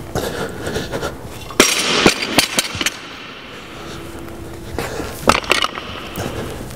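A loaded barbell with red plates set down onto a rubber deadlift platform: a clattering thud of several quick knocks about a second and a half in. A couple more short knocks follow around five seconds in.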